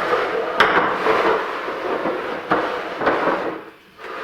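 Rubik's cubes being scrambled by hand: rapid plastic clicking and clattering of the layers being twisted, which dies away about three and a half seconds in.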